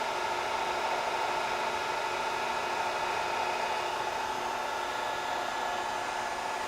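Bridgeport Series I vertical mill head running steadily at about 2,800 RPM in high gear with the power feed engaged: an even motor hum with a constant whine. It is quiet enough to talk over, a sign of a head in very good condition.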